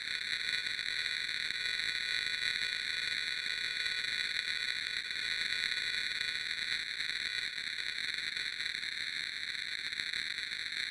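Eerie TV-style static sound effect: a steady, unbroken high hiss of electronic static.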